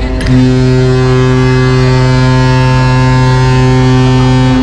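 The horn of the Pelni passenger ship KM Leuser sounding one long, loud, steady blast that begins a moment in. It is one of the three blasts that signal the ship is about to leave port.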